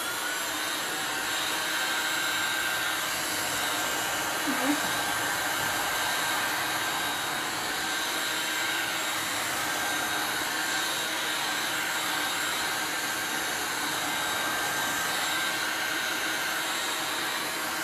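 Handheld electric heat gun running steadily at full blow, its fan giving an even rush of air with a faint steady whine, as it dries paint on a mixed-media board.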